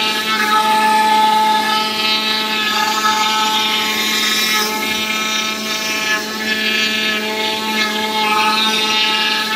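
Oscillating knife cutting machine running as its head cuts into EVA foam: a steady buzz held at one constant pitch, with a noisier hiss above it that swells and fades as the knife moves.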